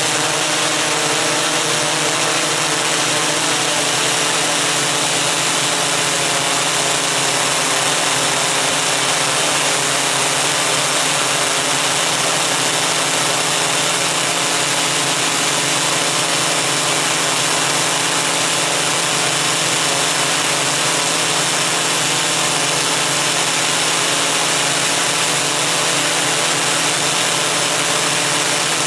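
Steady drone and whine of a Koax-Quadro X8 multicopter's eight motors and propellers, recorded by the camera it carries. Several steady tones over a dense hiss, unchanging in pitch and level throughout.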